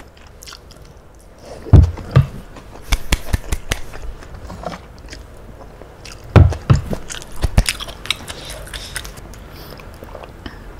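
Close-miked chewing and biting on a spoonful of tofu in peanut sauce, with many small clicks. Two louder bursts come about two seconds in and about six and a half seconds in.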